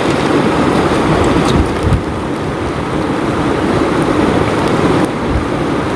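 A shallow, stony river rushing over rocks as a steady loud hiss, with wind rumbling on the microphone underneath.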